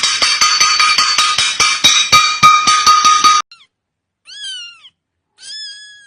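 A loud, dense sound with a steady high tone and fast, even clicking runs for about three and a half seconds and cuts off suddenly. Then a cat meows twice, each call rising and then falling in pitch.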